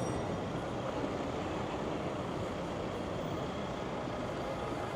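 Steady city street noise of motor traffic running past, without distinct events.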